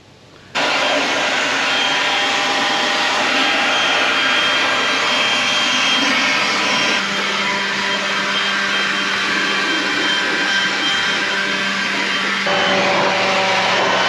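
A loud, steady whirring motor noise that starts abruptly and changes in tone about seven seconds in and again near the end.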